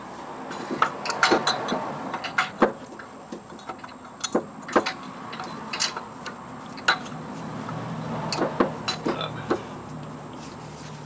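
Irregular metallic clicks and knocks of a motor mount bracket, bolts and hand tools being handled and fitted in a car's engine bay, with a faint low hum in the second half.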